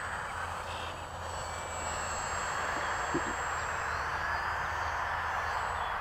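Electric motor and GWS 5043 propeller of an E-flite UMX Pitts micro RC biplane buzzing as it flies overhead, growing louder about two seconds in, with a faint high steady whine. There are two quick soft taps near the middle.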